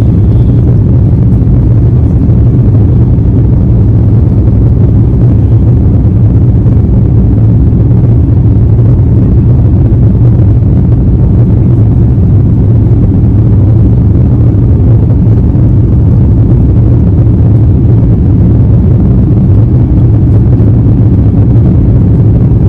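Airliner cabin noise heard from a passenger seat: a loud, steady low drone of the jet engines and rushing air, unchanging throughout.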